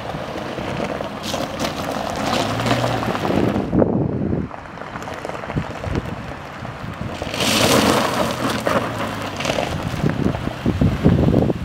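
Wind buffeting the microphone, with a Subaru Forester's engine running underneath as the car works over a cross-axle gravel-and-dirt mound in an all-wheel-drive diagonal traction test. The gusts come in two loud stretches.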